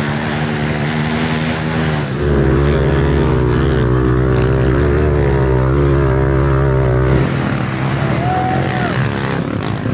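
Air-cooled pit bike engines revving hard in low gear on a steep dirt trail, the pitch wavering up and down with the throttle. The engine sound jumps louder about two seconds in and drops back about seven seconds in.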